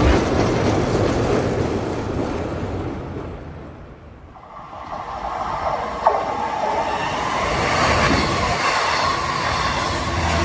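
Long Island Rail Road train passing: the rolling rail noise fades over the first few seconds, then builds again as a train approaches, with a sharp click about six seconds in and thin squealing tones.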